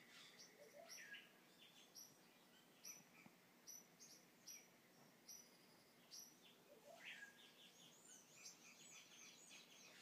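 Faint night jungle animal chorus: a short, high call repeated about once a second, joined by busier chirps and quick trills in the last few seconds.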